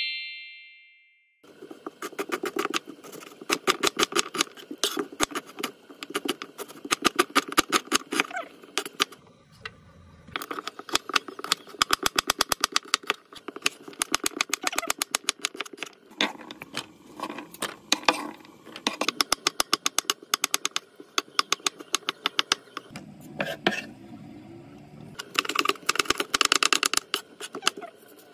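A fading chime in the first second. Then a kitchen knife chopping vegetables (zucchini, green chili peppers) on a wooden cutting board: quick runs of sharp taps several a second, broken by short pauses.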